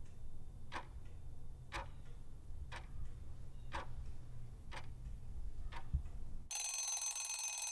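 Quiz countdown timer ticking about once a second over a low hum, then about six and a half seconds in a ringing alarm sound starts as the countdown runs out.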